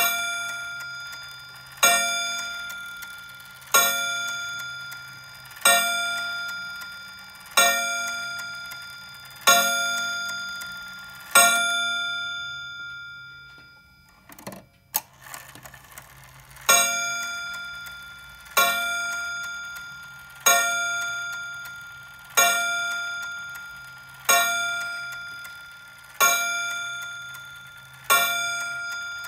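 Wall clock's striking movement hammering its rod gong about once every two seconds, each stroke ringing out and fading. Halfway through the strokes stop for a few seconds, with a few small clicks, then start again at the same pace.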